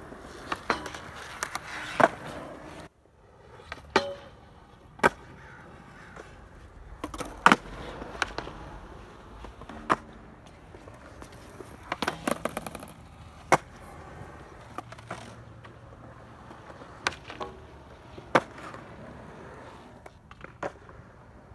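Skateboard wheels rolling on concrete, with repeated sharp clacks of the board as tricks are popped and landed. There is a sudden break in the sound about three seconds in.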